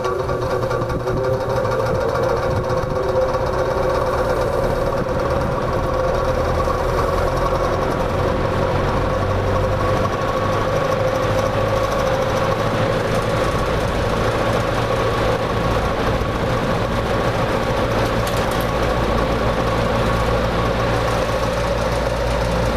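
Late-1950s Lasko 6745 box fan running, its high speed not working. The motor's hum rises in pitch over the first couple of seconds as it spins up, then holds steady.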